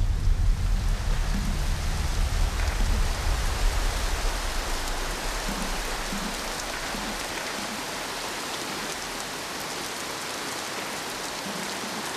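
Steady rain falling on a surface, an even hiss, with a low rumble underneath that fades away over the first half.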